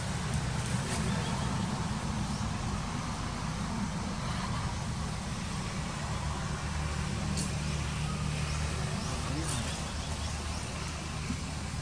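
Steady low engine-like rumble, with a few faint sharp clicks.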